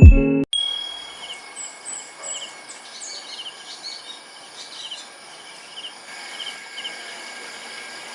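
Intro music ends with a last hit about half a second in. Outdoor ambience follows: insects trilling steadily, with birds chirping in short repeated notes.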